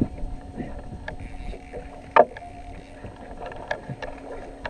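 Handling noise aboard a small fishing boat during a fish fight: wind on the microphone over a steady low hum, scattered small clicks, and one loud sharp knock against the boat about two seconds in.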